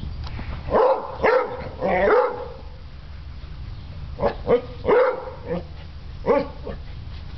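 Beagle barking at close range, about eight short barks in two bunches, the first about a second in and the second from about four to six seconds in.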